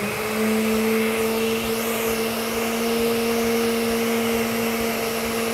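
Electric kitchen blender running at a steady full speed with a steady motor whine, blending egg white with lemon juice.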